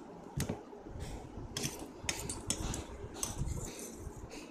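Metal fork clinking and scraping against a steel plate while gathering noodles: one sharp clink about half a second in, then a cluster of clinks and scrapes through the middle and one more near the end.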